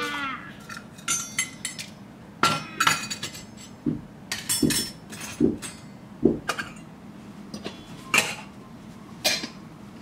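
Miniature stainless steel toy pots, lids and utensils clinking and knocking together as they are handled: irregular sharp metallic clinks with short ringing.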